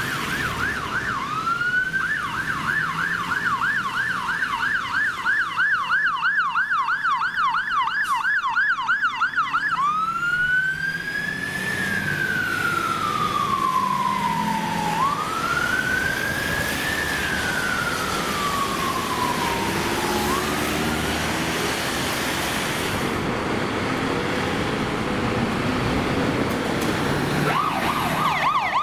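London Fire Brigade fire engine sirens. A fast yelp cycling about three to four times a second runs for the first ten seconds or so, then a slow wail rises and falls twice. This fades into the hiss of traffic on a wet road, and the fast yelp comes back near the end.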